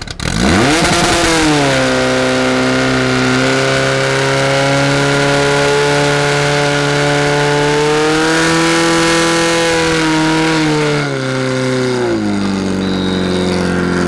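Portable fire pump's engine revving sharply up and running at high revs, driving water out to two hose lines. Its pitch holds high with slight wavering, then drops in two steps about eleven and twelve seconds in as it is throttled back.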